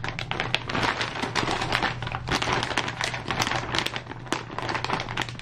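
Clear plastic parts bags rustling and crinkling as they are handled and swapped in the hands, a dense run of small crackles.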